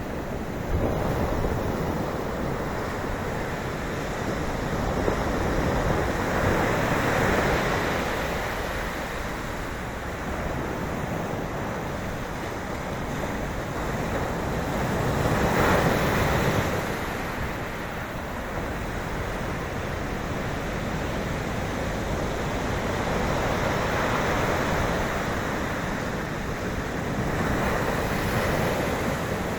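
Sea waves breaking and washing on the shore: a steady rushing surf that swells and recedes every several seconds, loudest about halfway through.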